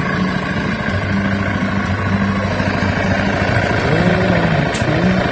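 Honda Zoomer scooter's single-cylinder engine idling steadily with a fast, even pulse. The uploader puts the engine's abnormal noise down to a failing bearing.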